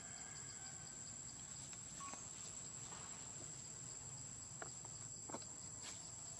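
Faint insect chorus: a steady high-pitched drone with a fast pulsing chirp that fades out about a second in. A few soft clicks come in the second half.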